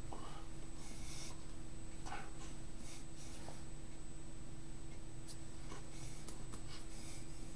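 Soft rustles and small ticks of hands and shirt sleeves brushing and tapping as someone fingerspells in sign language, over a steady low electrical hum with a faint high whine.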